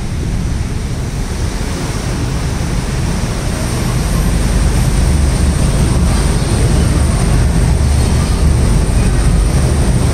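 Steady low rumble and rushing noise of a river tour boat under way, getting louder about four seconds in.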